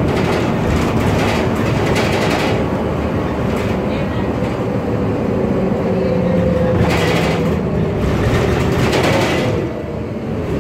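Cabin noise of a 2010 MAN Lion's Classic CNG city bus under way: its engine running, panels and loose parts rattling, and a steady whine for a few seconds in the middle, the kind the owner puts down to a noisy differential. The noise drops a little near the end as the bus slows.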